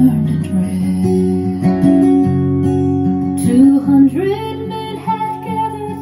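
A folk song's instrumental passage, led by acoustic guitar, played back through JBL 4344 studio monitors driven by a Sansui AU-D907F amplifier. A note slides upward about four seconds in and is then held.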